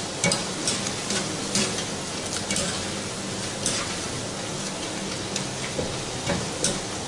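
Dough rounds of zeera papri deep-frying in hot ghee in a steel karahi, a steady sizzle. A wire spider strainer stirring them clinks sharply against the pan several times.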